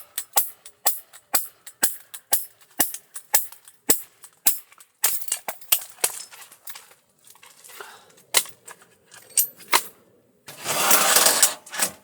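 Firewood being split smaller by hand: a steady run of sharp strikes about two a second, then scattered strikes, then a loud rustling clatter of wood for about a second near the end.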